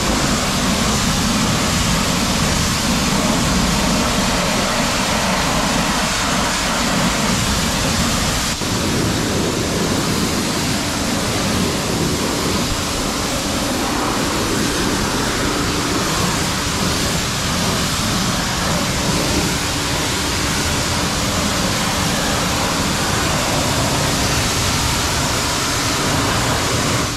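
High-pressure wash wand of a coin-operated self-service car wash spraying water onto a car, a loud, steady hiss of spray. Partway through the sound shifts slightly and a steady low hum joins it.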